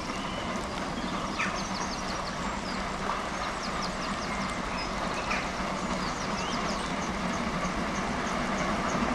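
GWR 4-6-0 steam locomotives 6024 King Edward I and 5029 Nunney Castle double-heading a train, working hard as they approach, the steady rumble growing slowly louder. Birds sing over it.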